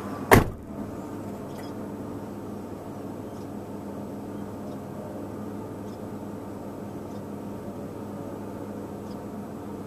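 A sharp thump about a third of a second in, then the steady hum of an idling car.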